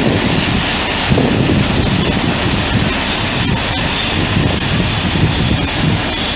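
Freight train of tank and covered wagons rolling past, a loud steady rumble of steel wheels on rail with a recurring low beat.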